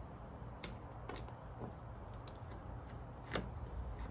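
A few light clicks and taps of small door-handle hardware and screws being handled, over a steady high-pitched whine.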